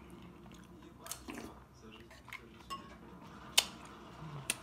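A metal serving spoon clinking against an earthenware soup pot and dishes as soup is ladled out: a handful of short, sharp clicks, the loudest about three and a half seconds in.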